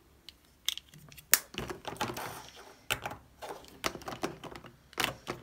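Small hard-plastic ink pad cases clicking as they are set down and stacked on one another: a handful of irregular sharp clacks, a second or so apart.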